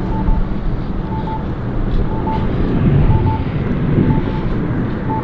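Strong wind buffeting the microphone, a loud, steady low rumble. A faint short beep repeats about once a second in the background.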